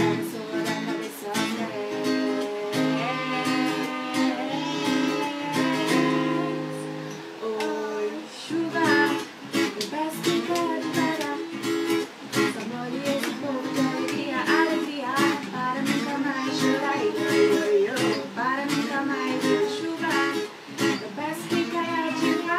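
Two girls singing a song together over a strummed acoustic guitar.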